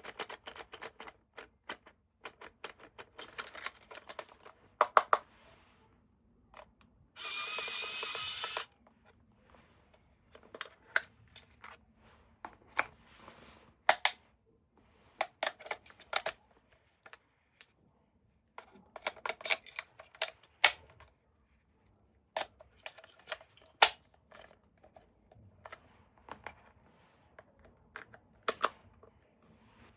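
Handling of hard plastic toy parts and packaging: scattered sharp clicks and knocks throughout. About seven seconds in, a small electric motor runs steadily for about a second and a half.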